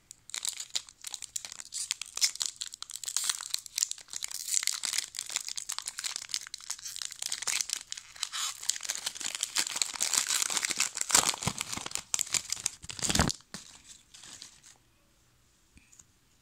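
Foil Pokémon trading-card booster pack wrapper crinkling and being torn open: dense crackling with sharp rips, which stops abruptly about thirteen seconds in, leaving only a few faint ticks.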